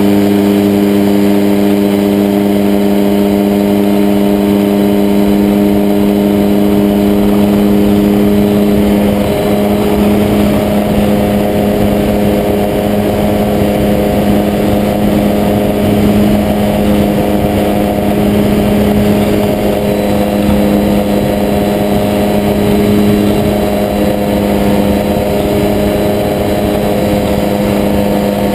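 Ultralight trike's engine at takeoff power, a steady loud drone through the takeoff run and climb-out. About nine seconds in, wind rush on the microphone joins it.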